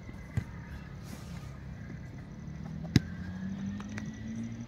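A football being kicked: two sharp thuds, a light one near the start and a loud one about three seconds in. Under them a low engine drone from a motor vehicle rises slowly in pitch in the second half.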